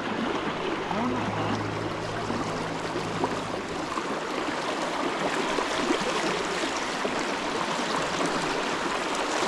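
Fast river current rushing and splashing steadily around a wading angler's legs. A low steady hum runs under it and stops about four seconds in.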